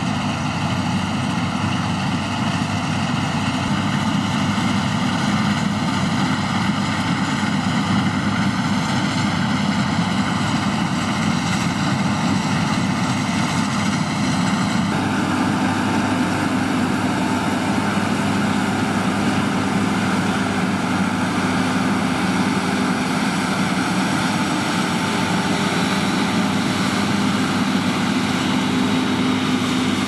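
John Deere S690i combine harvester running steadily under load while harvesting wheat: a constant engine-and-threshing hum with several steady tones. The pitch of the hum shifts suddenly about halfway through.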